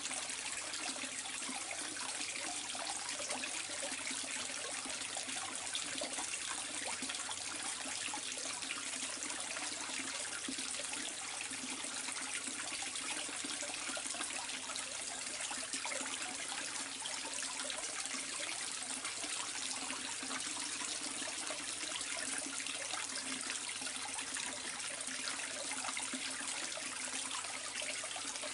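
Water trickling and splashing steadily into a koi pond, with a faint low hum underneath.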